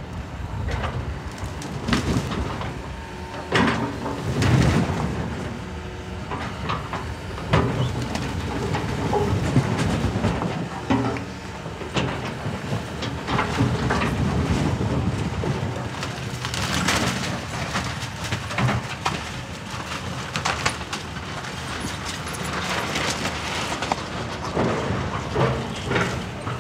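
John Deere 210G excavator's diesel engine running while its bucket and thumb tear into a building, with repeated irregular crashes and cracking of timber and brick debris breaking and falling.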